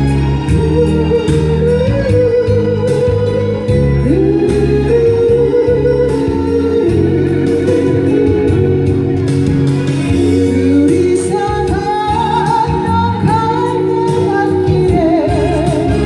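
A woman singing a Korean trot-style song with vibrato over a backing track with electronic organ and a steady beat.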